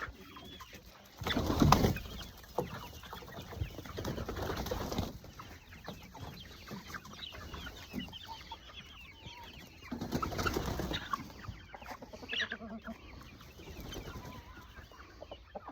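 Backyard hens clucking as they come out of the coop. Louder noisy bursts break in about a second in and again about ten seconds in.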